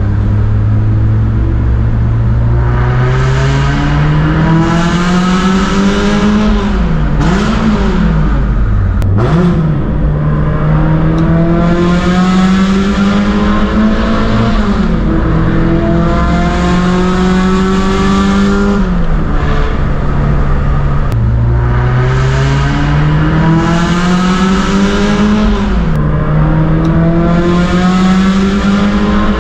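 Toyota AE86's twin-cam four-cylinder through a SACLAM exhaust, heard from inside the cabin in a tunnel. It is being driven hard through the gears, with a high exhaust note that climbs in pitch on each pull and drops at each of several gear changes.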